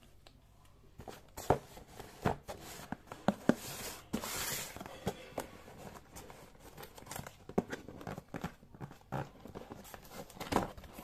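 Cardboard box being handled and opened by hand: scattered taps and knocks on the cardboard, with a short rasping tear about four seconds in.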